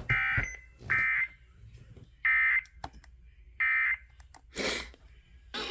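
Emergency Alert System (SAME) digital data bursts sent over the radio after a warning: four short, harsh, buzzing bursts roughly a second apart, marking the end of the alert message. A brief burst of static follows near the end.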